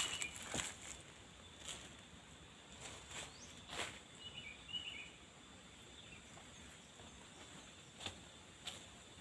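Forest ambience: a steady high-pitched insect drone, with a few scattered crunches of dry leaf litter and twigs underfoot and a short burst of bird chirps about four to five seconds in.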